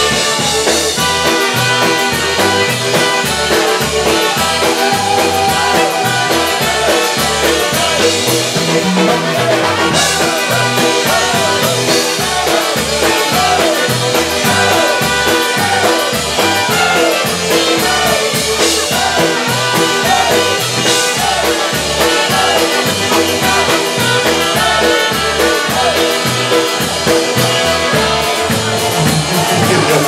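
Live polka band playing an instrumental passage: accordion and trumpets over a steady, bouncing bass beat.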